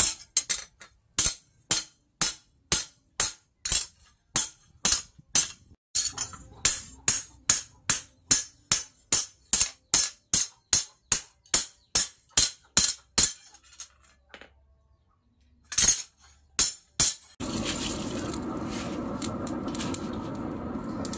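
A hammer strikes a steel plate cut from a tractor plough disc on a small anvil as it is shaped into an axe head: a steady rhythm of sharp strikes, a little over two a second, which stops about 13 seconds in, then three more blows. About 17 seconds in, a steady angle-grinder noise takes over.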